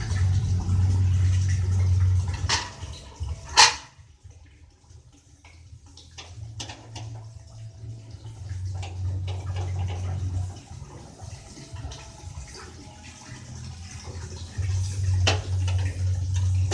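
A low rumbling noise that comes and goes, with a few sharp clicks; the loudest is about a third of the way in. A sharp metal clack near the end comes as the stove's steel lid is handled.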